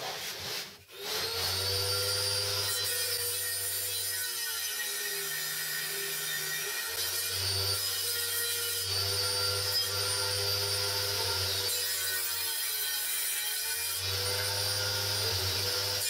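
Table saw running steadily, its motor starting up about a second in, while a crosscut sled slides along the table and carries wood through the blade. The pitch dips slightly a couple of times as the blade takes the cut.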